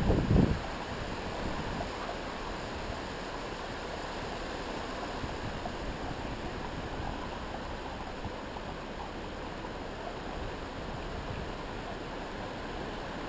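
Storm wind blowing as a steady rushing hiss, with strong gusts buffeting the microphone in the first half second.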